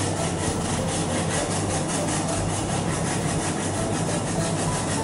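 Peeled raw sweet potato being grated on a white grater into a glass bowl: a steady run of rasping strokes as the flesh scrapes across the grater's teeth.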